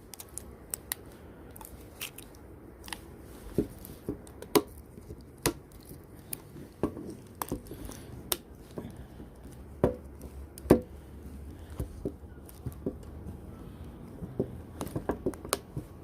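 Scattered sharp clicks and taps of a smartphone's plastic mid-frame housing being fitted over the board and pressed into place, with a few louder snaps among them.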